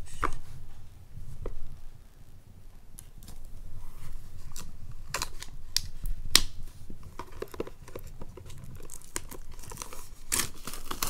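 Plastic shrink wrap on a boxed album being slit with a craft knife, then torn and peeled off with scattered crackles, crinkling more densely near the end.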